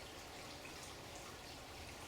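Faint, steady running water, like a small stream trickling and splashing.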